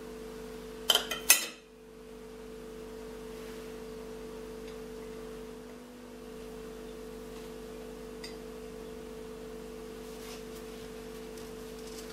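A metal table knife clinks twice, sharply, against ceramic dishes about a second in. After that there is only a steady low hum.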